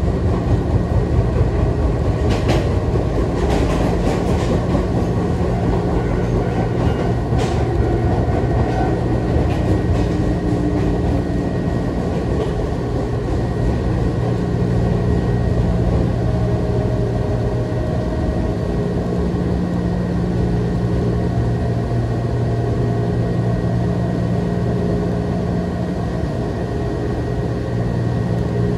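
Electric commuter train of the Nagareyama Line running along the track, heard from inside the carriage: a steady low rumble and hum of wheels and motors. A few sharp clicks come in the first eight seconds.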